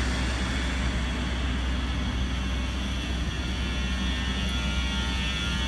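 Steady low hum with an even rushing noise from a 12,000 hp Indian Railways electric locomotive (no. 60001) standing close by. The sound holds level throughout with no strokes or changes.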